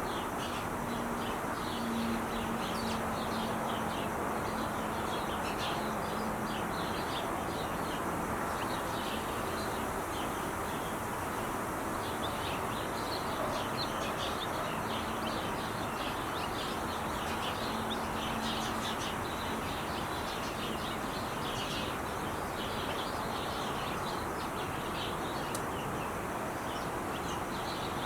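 Steady roar of Interstate 5 freeway traffic, with many small birds chirping quickly and continuously over it. A faint low hum runs under it and fades out about three quarters of the way through.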